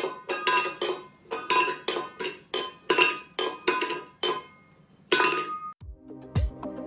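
A run of sharp metallic clinks, about two a second, each with a short ringing tone, like dishes or cutlery being struck. Music with a deep beat starts near the end.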